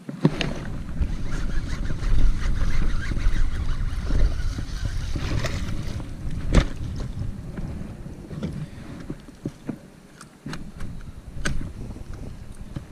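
Water splashing as a small hooked bass thrashes at the surface and is reeled in to a kayak, with wind rumbling on the microphone. Several sharp clicks come in the second half as the fish is handled.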